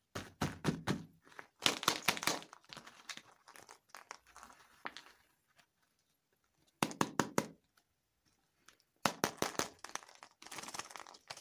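Shiny foil wrappers on cone-shaped toy packages crinkling and crackling as hands handle them, in several short spells separated by pauses.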